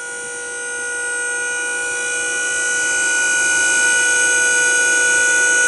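Electric-hydraulic dump hoist power unit (the PH520 hydraulic system) running under load to raise a steel dump bed. It makes a steady, many-toned whine that grows louder over the first few seconds and then holds level.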